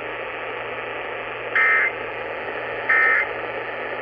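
Weather radio broadcast hissing with static, broken twice by short, loud, buzzy bursts of digital data tones about 1.3 s apart. These are the SAME end-of-message code that closes an Emergency Alert System tornado warning.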